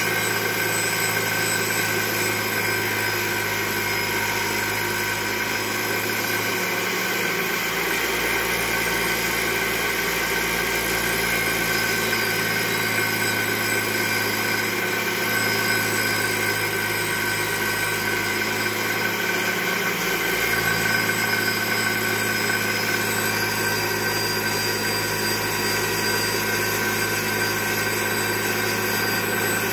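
Tool-post grinder on a lathe grinding the crank pin journal of a Sea-Doo 4-TEC crankshaft: a steady motor whine with the grinding wheel running against the spinning steel pin. It is taking the scored journal down for a half-millimetre undersize bearing.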